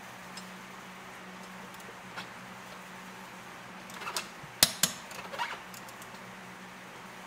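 Sharp metal clicks and clinks from a socket wrench with an Allen bit working the bolts of a motorcycle brake disc, mostly in a short cluster a little past halfway, with the two loudest close together. A faint steady hum runs underneath.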